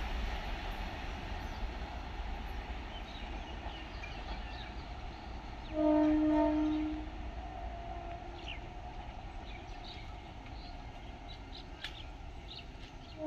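An EMU local train's horn sounds one loud steady blast of just over a second about six seconds in, followed by a fainter, shorter horn note. A steady low rumble runs underneath, with faint bird chirps.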